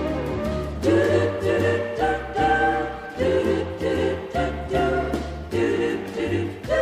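Church worship music: voices singing together over a band with bass and a steady drum beat.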